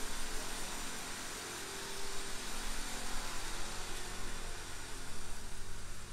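Steady, even rushing noise in the cabin of a running Toyota Alphard minivan, with no distinct knocks or clicks.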